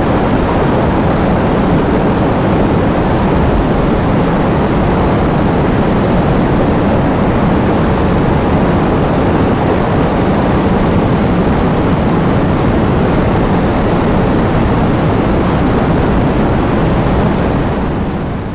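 Heavy rain falling in a steady, even rush that begins to fade out near the end.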